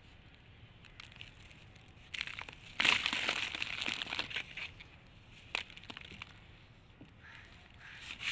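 Dry, gritty red brick sand crushed and crumbled by hand, the grains and lumps showering onto a piece of cardboard and the heap below. After a couple of quiet seconds with faint ticks, a gritty crunching and pattering rush starts and is loudest for about two seconds, then thins to scattered ticks and trickles.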